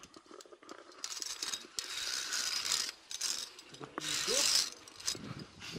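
Via ferrata carabiners clicking and scraping along the steel safety cable as a climber moves along it, with two longer stretches of scraping hiss about two and four seconds in.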